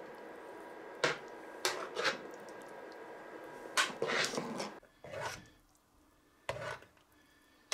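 A metal spoon scraping and knocking against an aluminium pot as thick vegetable purée is stirred, in a series of short scrapes and taps. A steady background hum with faint tones stops about five seconds in.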